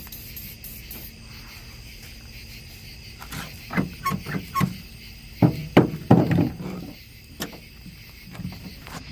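Short metallic clicks and clunks in quick clusters from a 2000 Ford F-150's freshly lubricated tailgate latch claws being worked, with a faint squeak or two among them.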